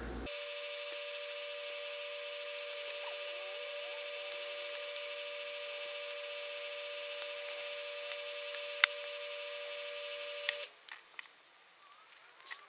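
A steady whine of two close tones with many fainter higher ones, starting abruptly and stopping suddenly about ten and a half seconds in. A few light clicks sound over it, the sharpest a little before nine seconds.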